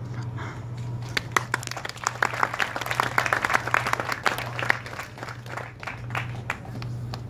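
Audience applauding a finished speech: clapping picks up about a second in, is thickest in the middle and thins out toward the end, over a steady low hum.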